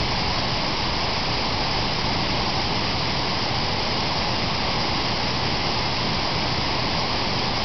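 Steady, even rush of water falling over the hotel's man-made waterfalls.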